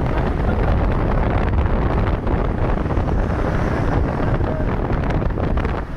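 Engine and growling exhaust of a Luragung Jaya bus running close by, a loud, steady, dense low rumble, with wind buffeting the microphone.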